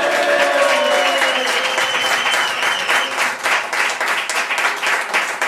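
A small group applauding, with dense clapping throughout and raised voices cheering over it in the first couple of seconds.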